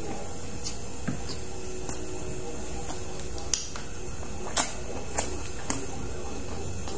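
Mouth sounds of a person eating cooked octopus and rice by hand: chewing with a few sharp wet lip smacks, the loudest about two-thirds of the way through, over a steady background hiss.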